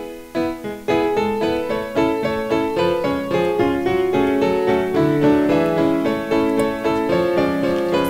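Instrumental music of quickly struck keyboard notes in a steady run, getting louder and fuller about a second in.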